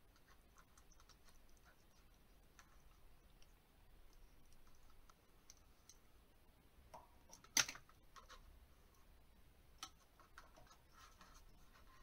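Faint clicking and scratching of an African grey parrot's beak working a small yogurt container, then one sharp clatter a little past halfway as the empty container is dropped, and a lighter knock about two seconds later.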